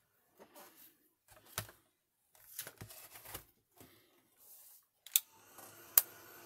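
Paper and a plastic stencil shuffled and set down on a craft mat, with scattered light knocks. Near the end come two sharp clicks, and an embossing heat tool starts blowing with a steady hum.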